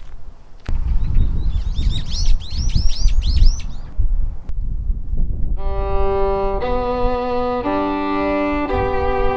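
A small bird chirping in quick, repeated arching notes over a low rumble; about five and a half seconds in, a violin begins playing slow, held notes.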